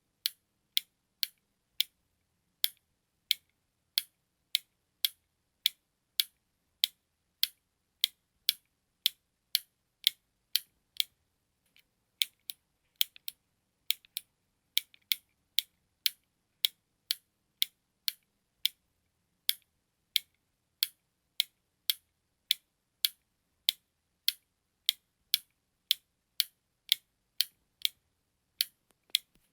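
Button clicking over and over: short, sharp, high clicks at about one and a half to two a second, with a brief pause about eleven seconds in.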